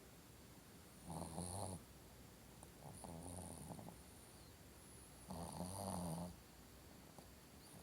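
Shih Tzu dog snoring in its sleep: three snores, each about a second long, roughly two seconds apart.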